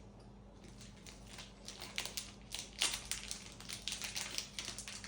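Close-up chewing of almond chocolate, a run of small crisp crunches that starts about a second in.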